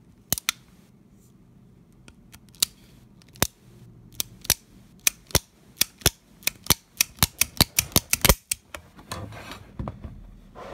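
Smith & Wesson Model 15-3 .38 Special revolver's action being worked by hand: sharp metallic clicks of the hammer and cylinder mechanism, a few at first, then faster and closer together, about four a second shortly before they stop. A softer rubbing of the gun being handled follows near the end.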